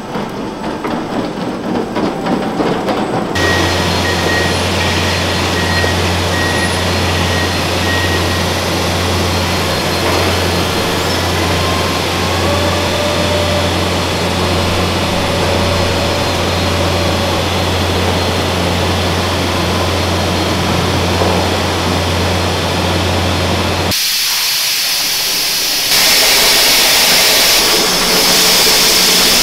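Steady mechanical hum of winery equipment with clattering noise, then a hissing rush of grape must pouring into a wooden vat, which comes in suddenly about two-thirds through and grows louder near the end.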